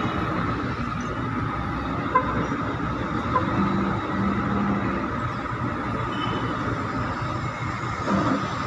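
Steady mechanical din of container-port machinery at work: the diesel engines of a harbour crane and a container truck running, with a constant whine, a couple of light clicks, and a short knock near the end.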